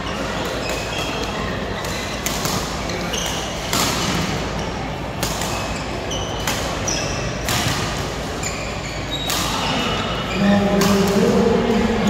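Badminton play in a large, echoing indoor hall: sharp racket hits on shuttlecocks about every one to one and a half seconds, short high squeaks between them, over a steady din of voices. A voice calls out loudly near the end.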